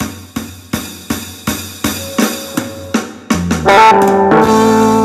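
A steady drum beat, nearly three strikes a second. About three seconds in, an electric guitar built from a DIY kit comes in with a rising blues run and settles on a ringing chord.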